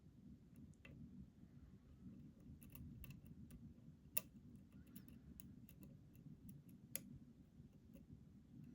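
Faint, scattered clicks of a hook pick working the pins of a challenge lock under light tension, with two sharper clicks, about four seconds in and again near seven seconds, over a low steady hum.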